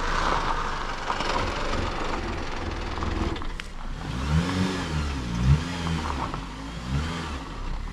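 2016 Jeep Patriot on the move: steady engine and road noise, with the engine note rising and falling several times in the second half. The engine runs smoothly after a corroded ECM/PCM power relay wire was repaired.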